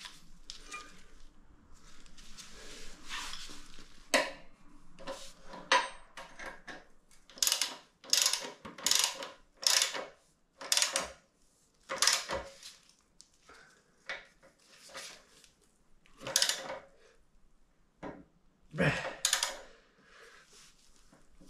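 Hand tools clicking and clinking on metal as the bolts of a Zündapp moped's bottom bracket and brake pedal are tightened. The sharp clicks come irregularly, in short clusters with brief pauses.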